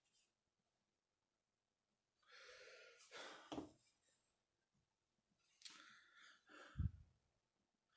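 Near silence, broken about two seconds in by a soft breathy exhale like a sigh, then a few small handling clicks and a low thump near the end.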